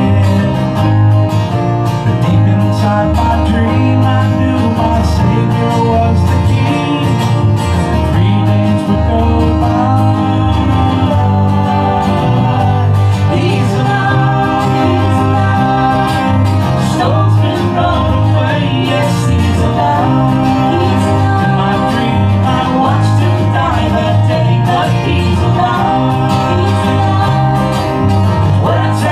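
Live country-gospel band music: a woman singing the lead over strummed acoustic guitar and a steady bass line.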